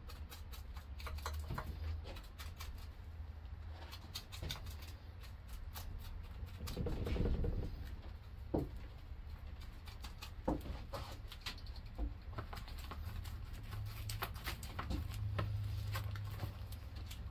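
Resin brush dabbing and stippling vinyl ester resin into chopped strand fiberglass mat on a mold: irregular soft taps, clicks and scratches, over a low steady hum.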